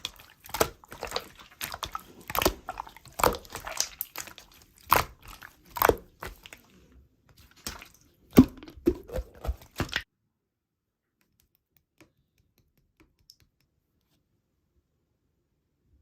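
Hands squeezing and poking slime, giving a quick irregular run of wet clicks and squelches, several a second. About ten seconds in the sound cuts off abruptly to near silence.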